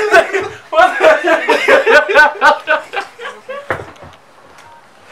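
Men laughing hard in quick, choppy bursts; the laughter dies down about three seconds in.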